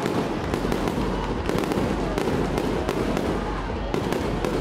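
Fireworks display: aerial shells bursting overhead, a dense, unbroken run of sharp bangs and crackles.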